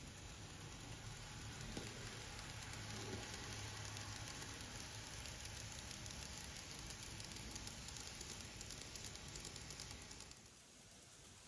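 Model railway train, a D51 steam locomotive model hauling hopper wagons, rolling past on the track: a steady hiss and rattle of small wheels on the rails, with a low hum a few seconds in. It drops away sharply about ten seconds in as the last wagon passes.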